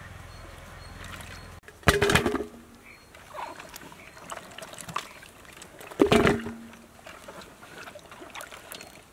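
Brinjals dropped into an empty aluminium basin, each landing with a loud ringing clang of the metal, twice, about 2 seconds and 6 seconds in, with softer knocks of handling in between. Before the first clang, a steady rushing noise cuts off abruptly.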